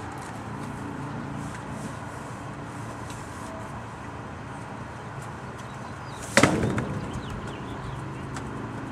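Cardboard boxes being handled and loaded onto a metal storage cart: a few faint knocks, then one loud thump with a short ringing decay about six and a half seconds in, over a steady low hum.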